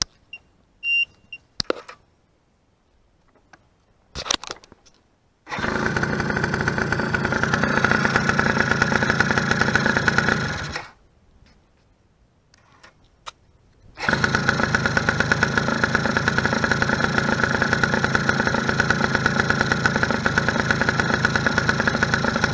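2005 Eton Viper 90R quad's small two-stroke engine starting about five seconds in, running for about five seconds and then dying. It starts again about three seconds later and runs on. There are a few clicks and knocks in the quiet stretches. The stalling is the machine's fault of cutting out when throttled up, as if running out of fuel.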